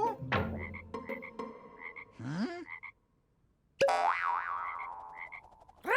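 Frog croaking sound effect in a children's cartoon, coming in suddenly after a brief silence around the middle, with short chime notes before it.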